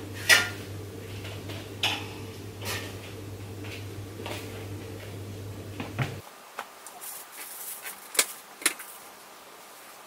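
Items being handled and taken out of a canvas tote bag, giving a string of sharp knocks and clicks, the loudest near the start. A steady low hum in the background cuts off about six seconds in.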